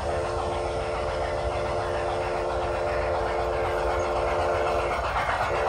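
The Soundtraxx sound decoder in a Bachmann Spectrum 2-6-0 model steam locomotive blowing its steam whistle through the onboard speaker: one long steady blast of about five seconds, then a short toot near the end, over the train's steady running noise.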